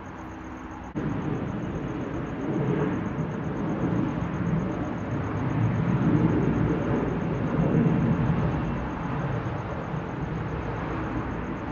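Distant jet airliner's engines making a low rumbling roar as it rolls down the runway. It comes in abruptly about a second in, swells in the middle and eases slightly near the end.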